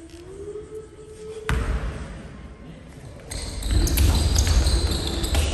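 Basketball game on a hardwood gym floor: a single ball bounce about a second and a half in, then from about three seconds a loud spell of sneakers squeaking and feet thudding as players move in on a free throw, with voices in the hall.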